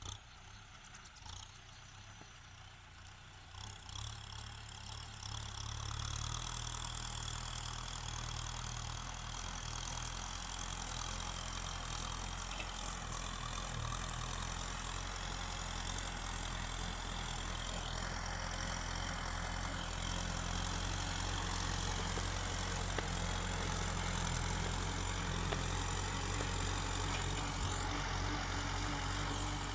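Kubota tractor's diesel engine running. It grows louder about four to six seconds in, then holds steady.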